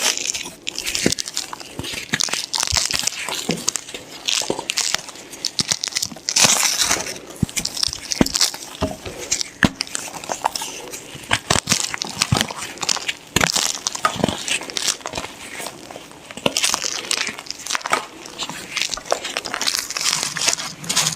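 Block of white gym chalk being crushed and crumbled, a dense run of crunching and crackling with many sharp snaps.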